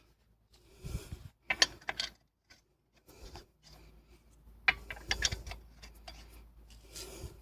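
Short clusters of metallic clicks and rattles from wheel hardware being handled as a summer wheel is hung on the hub and its lug nuts are spun onto the studs.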